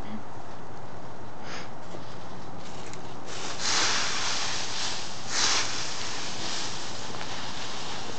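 Dogs, one a beagle, rooting through a deep pile of dry leaves: two loud bursts of leaf rustling and snuffling about three and a half and five and a half seconds in, over a steady hiss.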